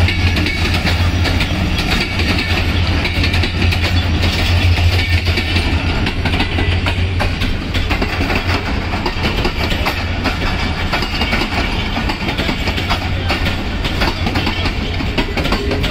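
A train running on the tracks: a steady low hum under a continuous rumble, with frequent wheel clicks over the rail joints.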